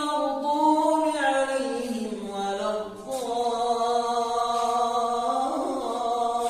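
A man's voice reciting the Quran in melodic tajwid style: long, held and ornamented notes that glide up and down, with a brief pause for breath about three seconds in. The recitation is unaccompanied and without microphone or sound effects.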